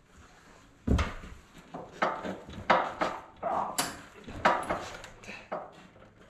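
Irregular knocks and clunks, about one a second, from an old Gilson riding lawn tractor with a dead engine being shoved and rocked across wooden floorboards.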